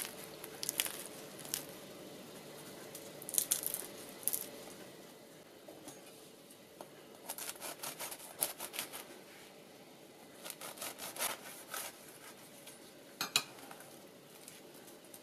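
The flaky crust of a freshly baked croissant crackling in short crisp bursts as fingers squeeze it, then a knife sawing through it in runs of crunchy crackles, with one last sharp crackle as the crust is pulled apart near the end.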